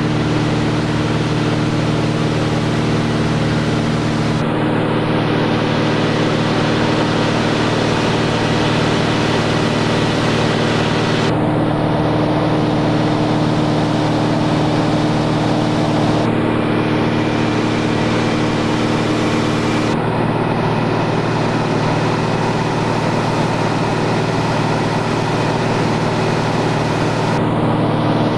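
A light propeller aircraft's engine and propeller droning steadily in flight, heard inside the cabin. The tone shifts abruptly a few times.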